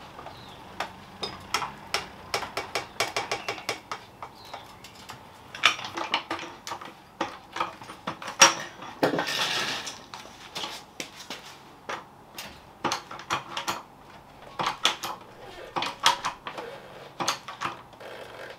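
Metallic clicks and clanks of a hydraulic trolley jack being worked and repositioned on concrete, its steel handle knocking, with a rougher rasping noise lasting about a second near the middle. The jack is raising one front wheel to full suspension compression.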